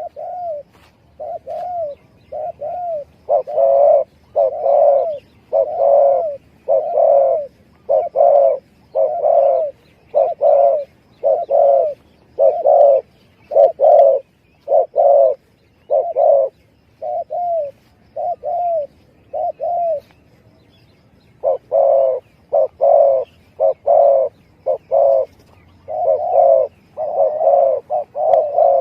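Spotted dove (tekukur) cooing over and over in short, repeated notes, played as a lure call to draw in wild doves. The calling pauses briefly about two-thirds of the way through.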